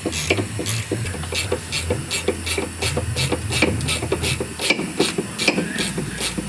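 Hand ratchet clicking steadily, about three clicks a second, as a 15 mm socket turns a bolt on the car's rear suspension.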